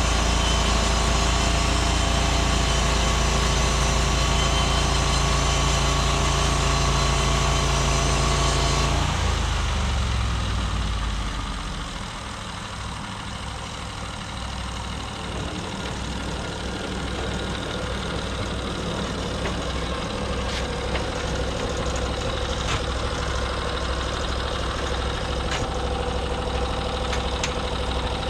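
Small gasoline engine of a Norwood MX34 portable bandsaw mill running steadily at high throttle, then throttled down about nine seconds in, its pitch falling, and idling for the rest with a few light clicks.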